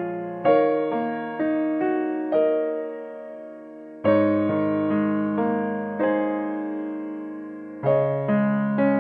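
Background piano music: gentle phrases of struck notes that ring and fade, with new phrases starting about half a second in, about four seconds in and near the end.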